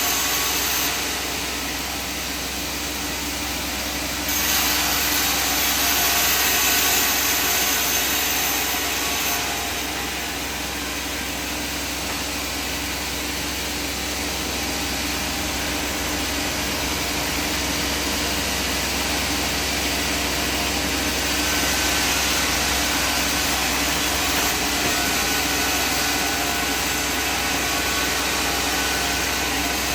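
Sawmill machinery running: a steady motor hum with saw and wood-cutting noise over it. The noise shifts abruptly about a second, four seconds and nine seconds in.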